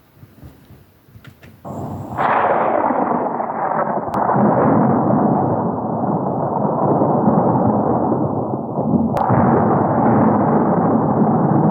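Vintage Disney thunder sound effect: a sudden crash of thunder about two seconds in, then a long heavy rumble that rolls on, with sharp cracks at about four and nine seconds.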